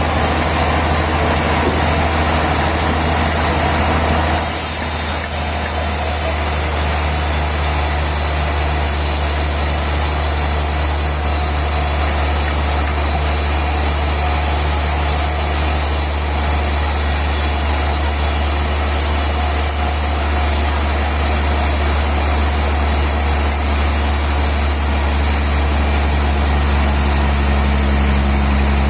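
Sawmill bandsaw machinery running steadily with a low hum. About four seconds in the sound shifts and a high hiss comes in.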